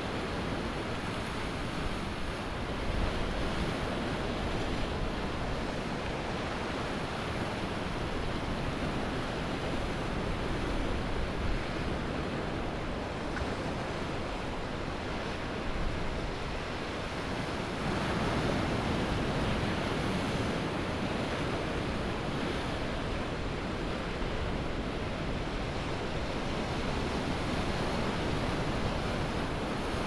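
Ocean waves breaking and washing onto a sandy beach in a continuous surf wash that swells and eases, with a louder wave breaking about 18 seconds in.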